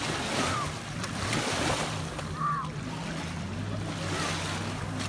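Splashing and lapping of shallow lake water as children kick and wade, with wind on the microphone. A steady low engine hum, typical of a distant motorboat, comes in about two seconds in.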